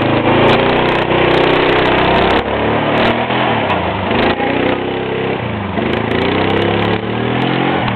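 Bombardier 400 cc quad's engine revving as the ATV pulls away and rides off, its pitch rising and falling several times with the throttle.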